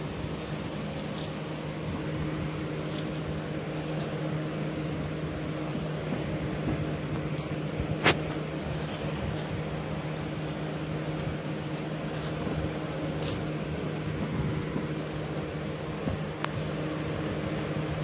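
Metal handcuffs clinking and clicking as they are fitted around a wrist and ankle, with one sharp, loud click about eight seconds in, over a steady mechanical hum.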